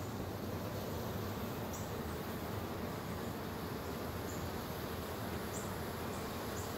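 A honeybee swarm buzzing in a steady hum around a bait box it has just moved into. A few short high chirps sound over it.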